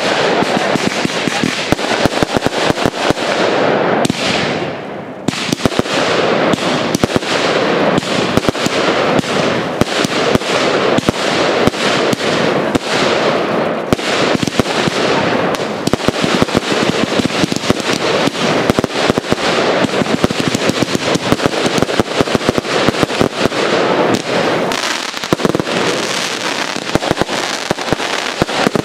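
Professional fireworks display: a dense, continuous barrage of bangs and crackling from aerial shells bursting, easing briefly about five seconds in.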